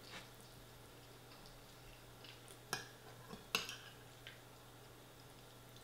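Metal spoon clinking and scraping against a ceramic bowl as food is scooped up, with two sharper clinks a little under a second apart near the middle and a few fainter taps.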